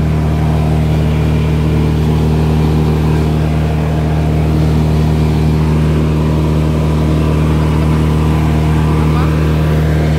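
Morbark wood chipper running at a steady speed, its engine a loud, even drone.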